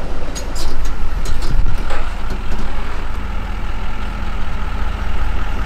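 Engine of a heavily lifted pickup truck on oversized wheels running as the truck drives in, a steady low rumble.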